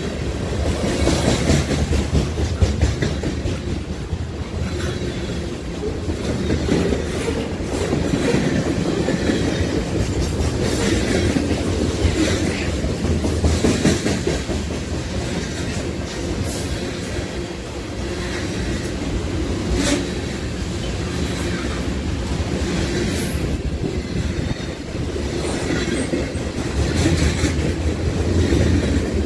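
Mixed freight train of autoracks, tank cars and covered hoppers rolling past at speed close by: a steady rumble of steel wheels on rail, broken by occasional sharp clanks.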